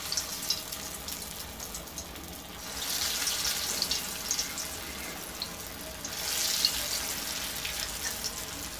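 Dal pakoda batter deep-frying in hot oil in a kadai, a steady sizzle with fine crackling that swells louder twice, about three and six seconds in.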